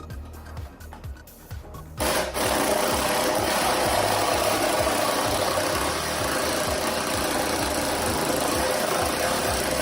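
A power tool cutting into the car's exhaust pipe, starting suddenly about two seconds in and running steadily, over background music with a steady beat.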